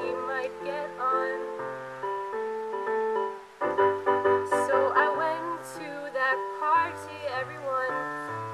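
Woman singing live while accompanying herself with piano-sound chords on an Ensoniq MR-76 keyboard. The chords change about every second, and her voice is strongest from about four seconds in.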